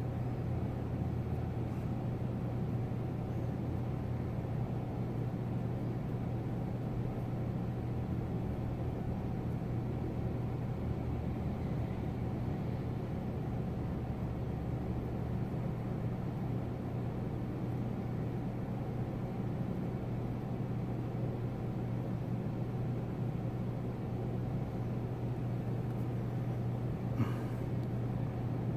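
Steady low background hum with a droning tone, unchanged throughout, and one faint click near the end.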